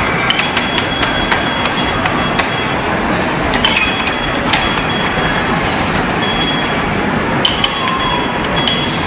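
Loud, steady arcade din with an air hockey game in play: scattered sharp clacks of the plastic puck hitting mallets and the table rails, and steady high electronic tones from the machines around it.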